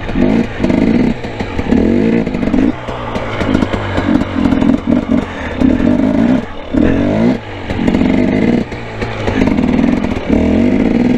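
Two-stroke dirt bike engine revved in short bursts about once a second, the pitch rising and dropping with each blip of throttle. This is the on-off throttle of a rider holding slow wheelies.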